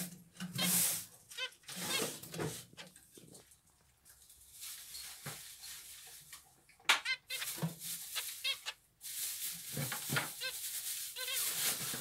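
Zebra finches calling: short, nasal beeping calls given a few at a time in scattered clusters, loudest about a second in and again around seven seconds in.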